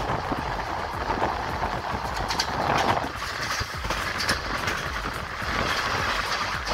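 Passenger train with LHB coaches running: a steady rumble and rush of noise with scattered clicks and knocks.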